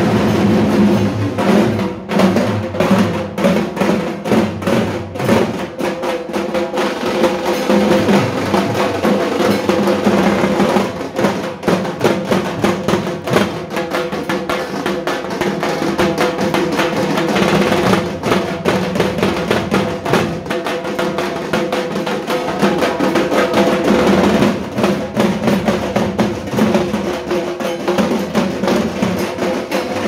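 Several dhak, the large two-headed barrel drums of Bengal, beaten with thin sticks in a fast, dense rhythm of overlapping strokes.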